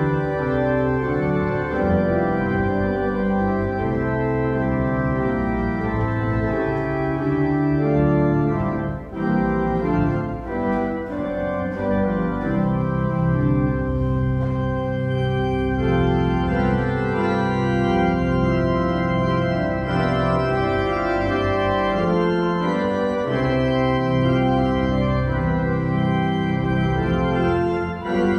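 Church organ playing a hymn tune in sustained chords, with no singing. There are brief breaks between phrases about nine seconds in and near the end.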